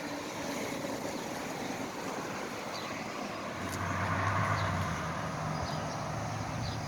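Outdoor road traffic noise, with a motor vehicle passing by about halfway through, its low engine hum swelling and then fading.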